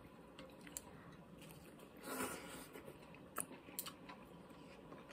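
Faint eating sounds: a person chewing food, with a few light, sharp clicks of wooden chopsticks against a porcelain bowl.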